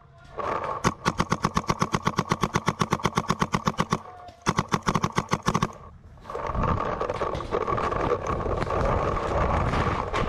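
Adrenalin Featherlite Angel LCD electronic paintball marker firing rapid strings of shots at about ten a second: one long burst, a brief pause, then a shorter burst. After the shooting come steady rustling and thumping as the player runs through brush.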